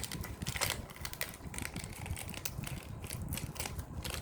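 Plastic toy packaging being handled, a quick run of small clicks and crinkles with a louder crackle about half a second in.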